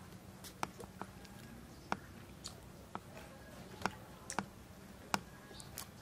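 Two people eating rice and fish with their hands: chewing and mouth smacks with sharp clicks scattered about one or two a second, over a faint steady hum.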